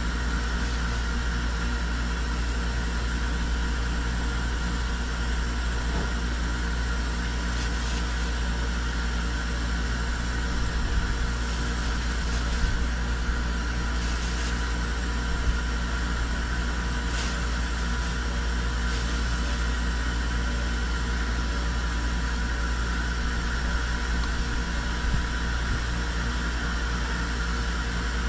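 A steady machine hum: a low drone with a few constant tones over a hiss, at an even level, with a few faint light knocks.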